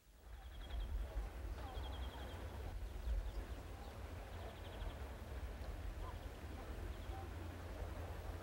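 Outdoor lakeside ambience: birds chirping in short, faint trills every second or two over a steady low rumble.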